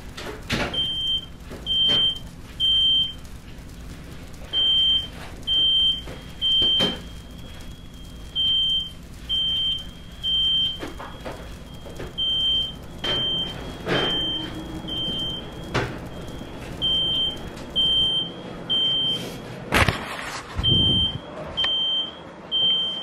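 Smoke alarm sounding its repeating pattern of three high, shrill beeps with short pauses between sets, set off by smoke in the kitchen. Scattered knocks and clatter come between the beeps, with one loud bang about twenty seconds in.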